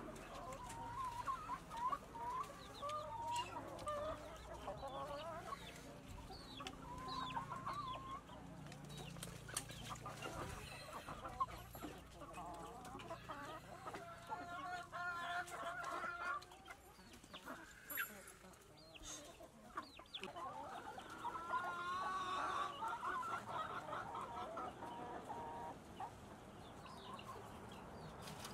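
Domestic chickens clucking, several birds calling on and off in short wavering calls.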